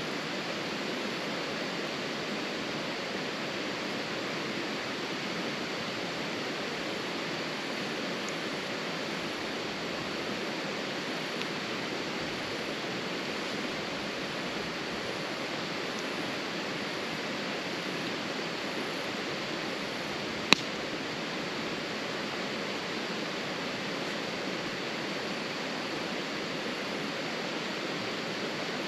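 Steady rushing noise with one sharp crack about two-thirds of the way through.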